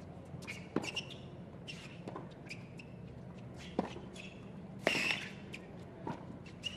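Tennis rally on a hard court: a ball struck by the rackets every second or so, the hardest hit about five seconds in, with short sneaker squeaks on the court surface in between.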